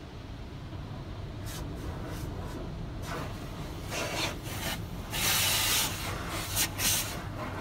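Automatic car wash heard from inside the car: repeated bursts of water spray and brushes working over the body and glass, above a steady low rumble. The longest and loudest burst comes about five seconds in.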